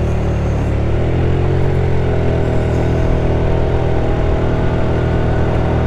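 150cc GY6 scooter engine (single-cylinder four-stroke) pulling away from a stop. Its steady note rises gradually as the scooter picks up speed.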